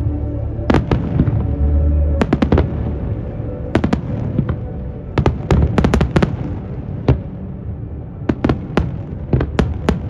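Fireworks display: aerial shells bursting in irregular volleys of sharp bangs and deeper booms, with quick crackling runs, over music playing underneath.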